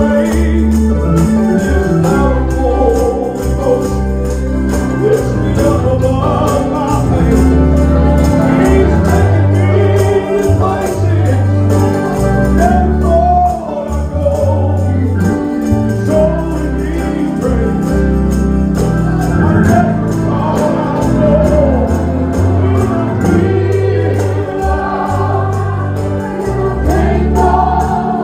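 A group of voices singing a gospel song over a band, with a deep bass line and a steady beat of light percussion.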